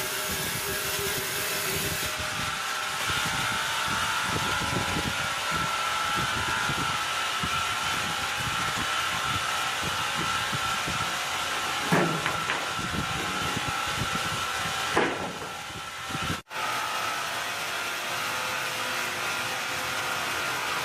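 Large sawmill sawing machine running steadily: a constant noisy hum with a thin high whine on top, and a couple of sharp knocks partway through. The sound breaks off for an instant a little after two-thirds of the way in, then carries on the same.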